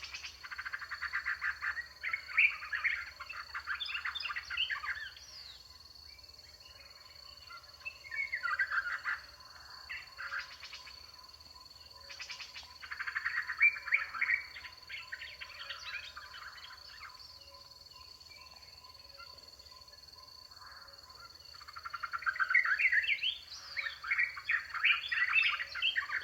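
African wild dogs (painted dogs) twittering: four bouts of rapid, high, bird-like chirping calls with short pauses between them. A steady high tone runs underneath.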